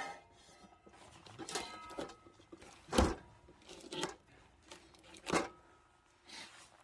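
Sawing trails off at the start, then about six short, separate knocks and clunks of firewood being handled in the pause between cuts.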